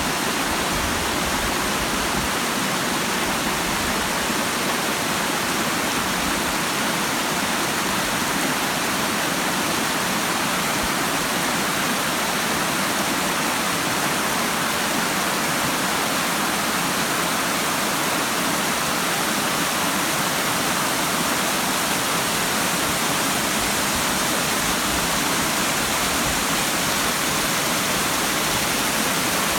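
Water pouring over the lip of a waterfall: a steady, unbroken rush.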